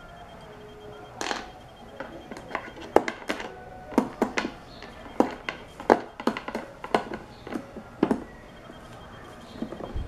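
Screwdriver driving screws into a blender's plastic base: an irregular run of short clicks and small knocks, several a second, as the blade turns and slips in the screw heads, dying away about 8 seconds in.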